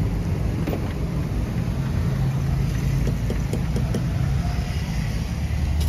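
Steady low droning rumble, with a few light metal clinks from the cooking utensils at the griddle pans.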